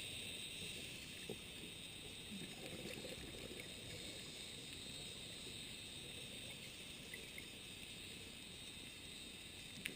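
Underwater reef ambience picked up through a camera housing: a steady hiss with a fine crackle, and a single sharp click near the end.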